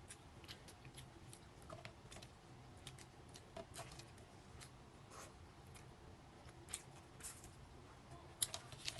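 Faint, irregular cracks and clicks of boiled crab shell being broken apart during eating, with a louder cluster of cracks near the end.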